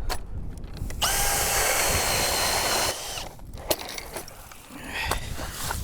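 Cordless drill-powered ice auger running for about two seconds, spinning up, holding a steady whine and winding down, over low wind rumble on the microphone.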